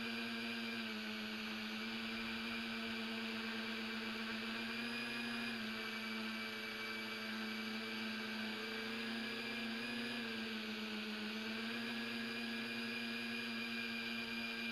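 Tricopter's electric motors and propellers whining steadily in flight, several tones together, the pitch swelling up slightly about five and ten seconds in as the throttle changes.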